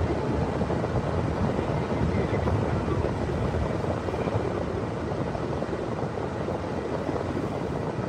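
Steady road and engine noise heard inside a moving car, a low rumble with a hiss above it, easing a little as the car slows in traffic.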